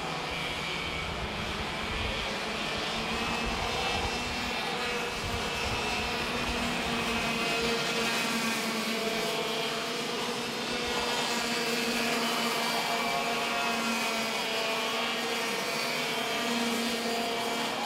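Racing kart engines running at speed on track, a high steady engine note whose pitch shifts slightly a few times.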